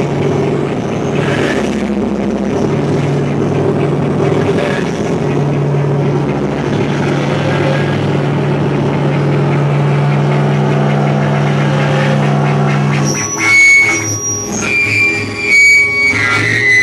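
Live noise music: a dense wall of distorted noise over a steady low drone, which about thirteen seconds in breaks into choppy, stuttering blasts with piercing high tones.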